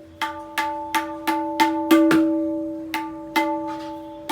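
Right-hand tabla drum (dayan) struck about ten times with sharp strokes, each ringing on a clear pitch close to D, as it is tuned and checked.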